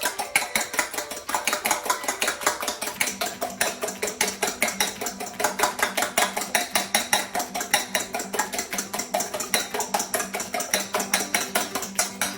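A fork beating eggs in a bowl: a fast, even run of clinks of the fork against the bowl, about six a second, stopping near the end.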